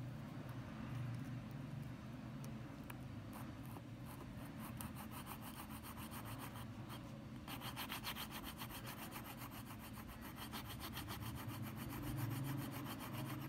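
A small metal file rasping against a white plastic strip clamped in a wooden jig, in rapid, even back-and-forth strokes that grow louder about halfway through.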